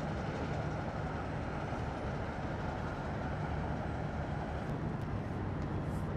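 Steady low engine drone of diesel engines and generators running on the moored fishing boats, an even hum with a wash of noise over it.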